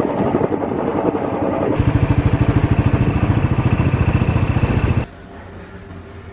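Motorcycle engine running with a fast, even low pulse. The sound cuts off abruptly about five seconds in, leaving a much quieter background.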